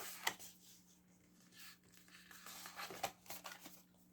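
Thick card-stock cards being handled and turned over: faint paper sliding and rustling with a few light taps.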